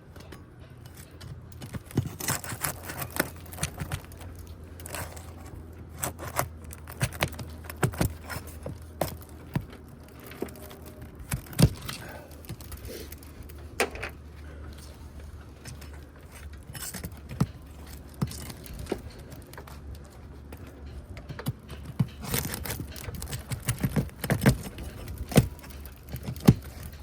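Irregular sharp clicks, scrapes and metallic clinks of hand tools prying nails out of brittle asphalt roof shingles. The clicking comes in busy clusters, thickest in the first third and again near the end.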